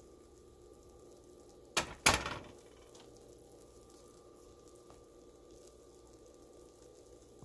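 Two sharp knocks close together about two seconds in, the second trailing off briefly, over a faint steady hum.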